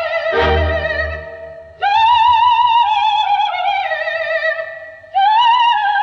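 Background music: a high melody with wide, even vibrato that glides from note to note and breaks off twice. A low struck note sounds about half a second in.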